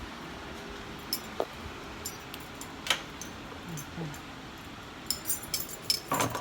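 Keys jingling and clinking in short, irregular bursts, thickest near the end.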